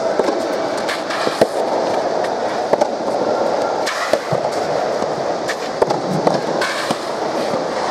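Soft tennis rally: sharp pops of rackets striking the rubber ball, about every second or so, over steady background noise.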